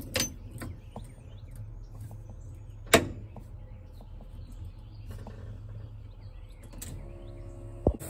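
Ignition key and switch clicks at a Volkswagen Beetle's dashboard: one sharp click about three seconds in and a few lighter ones, over a steady low hum with birds chirping.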